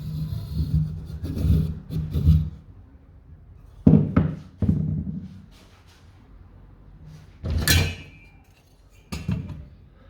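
A few separate knocks and thumps, the brightest and sharpest near the end, after a stretch of low rumbling handling noise.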